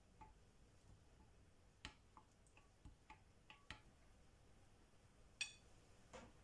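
Faint, irregular clinks of a metal spoon against a glass bowl while stirring melting chocolate into hot cream, with a sharper clink about five seconds in as the spoon is set down against the bowl.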